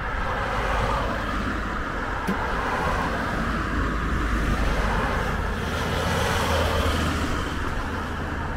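Busy road traffic: cars passing close by, one swelling and fading about six to seven seconds in.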